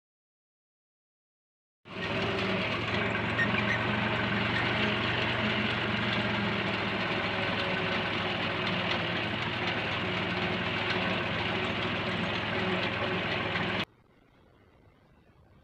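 Tractor engine running steadily under load as it drives a mounted reaper cutting wheat, heard close from aboard the tractor. It starts abruptly about two seconds in and cuts off suddenly near the end.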